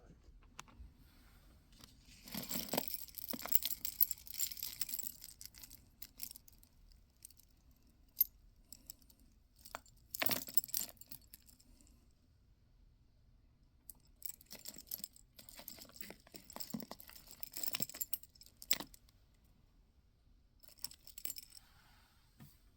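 Beads on book and journal tassels clinking and jangling together in four short spells, the longest about four seconds, with quiet between them.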